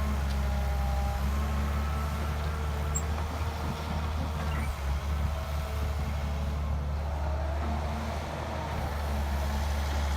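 Heavy diesel engine of construction machinery running steadily under load, with faint whining tones above the low rumble.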